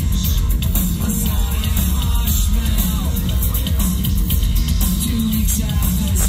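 Industrial band playing live and loud through a club PA: heavy bass and drums pounding steadily, electric guitar, and a singer's voice gliding over the top.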